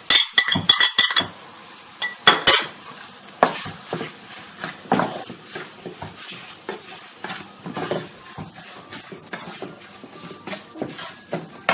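A spatula stirring and scraping chili powder into garlic and ginger frying in oil in a nonstick pan, over a light sizzle. A few loud sharp clinks and taps of utensils against the plate and pan in the first two and a half seconds, as the powder is tipped in.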